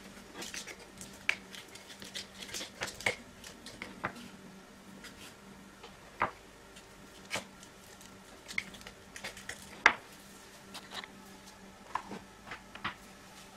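Wooden spoon mashing and stirring herb garlic butter in a small ceramic bowl: irregular scrapes and light taps of wood against the bowl.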